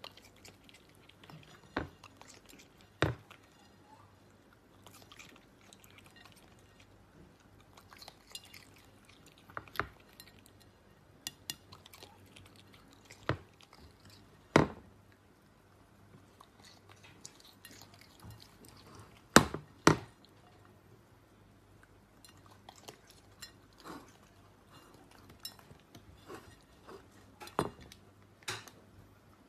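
A raccoon picking pomegranate seeds off a ceramic plate and chewing them. Irregular sharp clicks and clinks of its claws and the seeds against the plate come a second or a few apart, over soft chewing.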